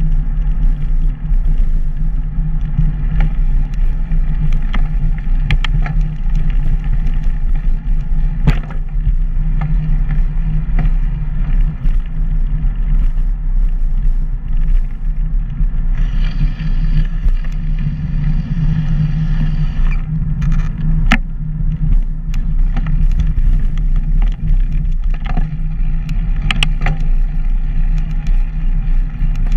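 Loud, steady wind rush and rolling rumble from riding along a paved path, with occasional sharp clicks and rattles.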